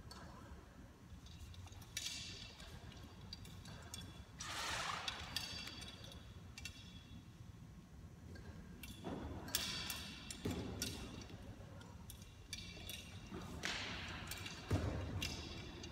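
An aerialist swinging on aerial straps: a swish each time the body sweeps past, three times, with light clicks of the rigging and a thump near the end.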